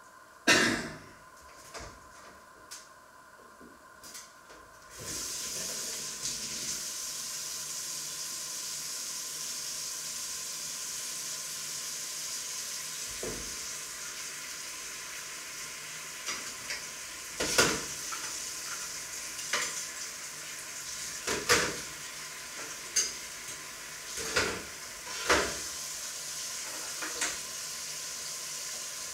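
A knock, then food starts sizzling in a frying pan about five seconds in and keeps up a steady sizzle. Several sharp clinks of a utensil against the pan come through it in the second half.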